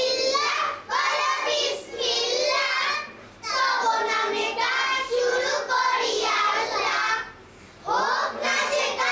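A group of children singing together in phrases, with short breaks for breath about three seconds in and again near the end.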